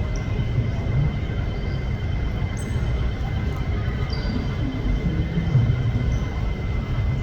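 Boeing 787 jet engines at taxi power: a steady low rumble with a constant high whine.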